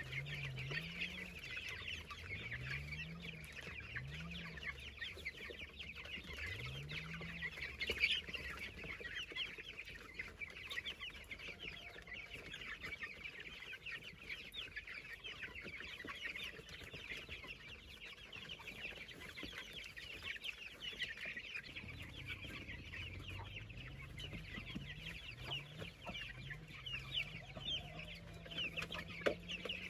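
Chickens clucking and calling continuously.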